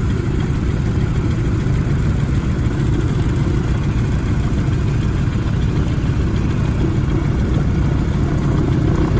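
Radial engines of a Lockheed Model 12 twin running at idle just after start-up, heard close beside the right engine nacelle: a loud, steady rumble with a rapid, uneven throb.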